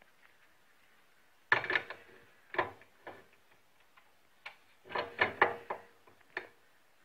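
Metal clinks and knocks as a steel plate with a toothed ring is handled and set against a lathe's chuck: a cluster of sharp knocks about a second and a half in, then a second, denser cluster about five seconds in.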